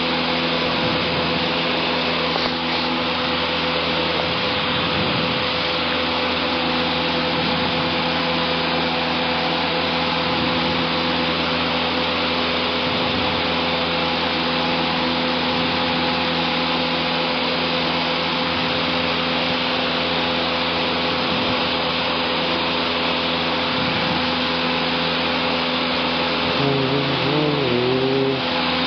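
Cessna 150's four-cylinder Continental O-200 engine and propeller running steadily at full climb power just after takeoff, a constant drone with a steady hum.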